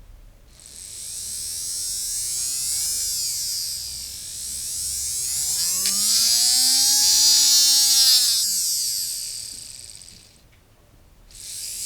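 A small 3-volt brushed DC motor, stripped of its stator magnets, spinning with a high buzzing whine as loose magnets are held near its rotor. The pitch rises and falls as the magnets move, is loudest around the middle, dies away about ten seconds in and picks up again briefly near the end. It runs only while the magnets are close.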